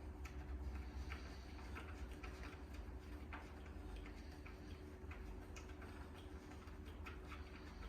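Faint, irregular light clicks of an Allen key working cot bolts tight by hand, metal on metal, over a low steady hum.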